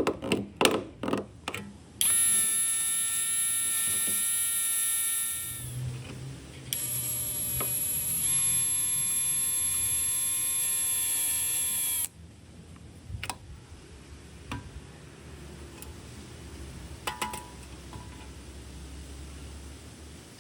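A few sharp knocks, then an electric power tool's motor running with a steady high whine for several seconds, dropping briefly and starting again before cutting off suddenly; faint scattered clicks follow.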